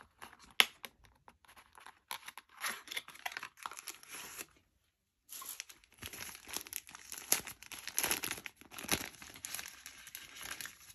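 Tissue paper rustling and crinkling in the hands as it is pulled off a small figure and crumpled, in uneven bursts with a short silent break near the middle. A sharp click about half a second in.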